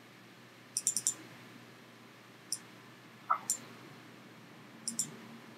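Computer mouse buttons clicking: a quick pair of double-clicks about a second in, a few single clicks in the middle, and another double-click near the end.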